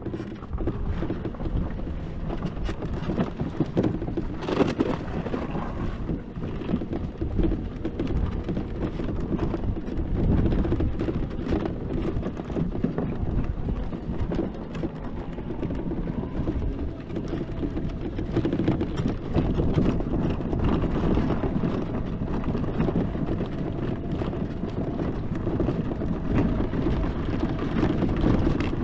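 HECHT 59399 ARMY electric ATV riding over rough, bumpy ground: a steady low rumble of tyres and running gear with frequent short knocks and rattles.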